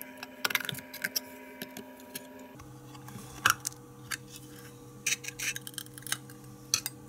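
Irregular sharp clicks and scrapes of a screwdriver and knife prying and cutting at the sealant around the metal cover of a throttle body's mass air flow sensor housing, over a steady low hum.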